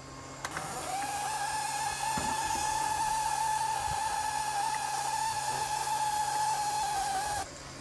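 Loud, steady hissing with a high whine, from an O gauge live steam locomotive being readied for a run. The whine rises briefly at the start, then holds steady, and everything cuts off suddenly near the end.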